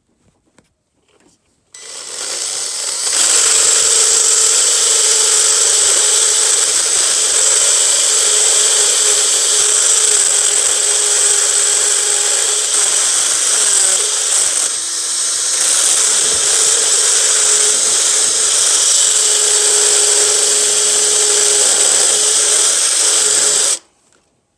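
A high-speed handheld power tool spins up and runs steadily with a high-pitched whine, machining the remains of a broken intake manifold bolt out of its hole. It eases briefly about halfway through and cuts off sharply near the end.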